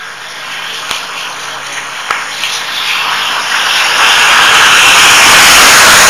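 General Electric diesel locomotive pulling a passenger train approaches and passes close by. The engine and wheel noise builds steadily and is loudest from about four seconds in, as the locomotive goes by.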